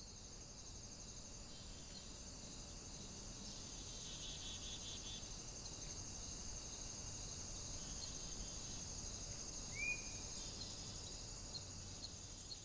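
Faint, steady, high-pitched insect chorus with a fine pulsing texture, and a single short rising bird chirp about ten seconds in.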